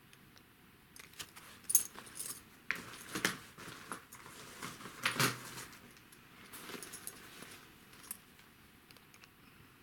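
Cloth drawstring bags being handled: irregular rustling of fabric and light clicks as two bags are put down and another is picked up, loudest about two seconds in and again about five seconds in.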